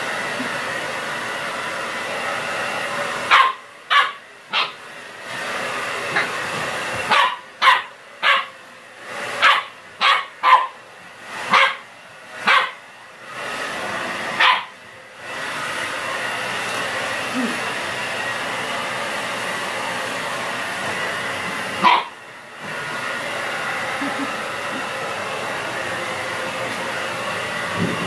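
Hand-held hair dryer blowing with a steady hiss, which cuts out twice for several seconds. In those gaps a corgi puppy barks at the dryer: a few barks about three seconds in, then a quick string of about ten, and one more bark later.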